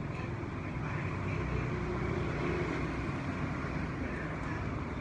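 Steady rumble of a vehicle running, engine and road noise without a break.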